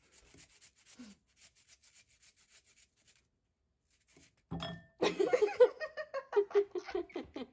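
Carrot being grated on a fine rasp grater: faint, quick scraping strokes, several a second, for about three seconds. After a pause and a soft thump, a person's voice comes in loudly in short choppy bursts over the last two and a half seconds.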